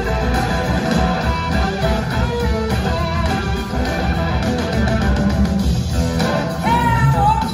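Live blues-rock band playing, with electric guitars to the fore over bass and drums. Near the end a high, wavering lead line rises above the band.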